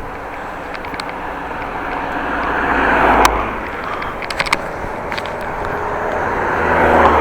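Steady wind and road noise of a moving bicycle, with traffic swelling past twice, about three seconds in and near the end. Over it come sharp clicks and cracks from the rider's action camera itself: a loud crack about three seconds in, then a quick cluster of clicks about a second later.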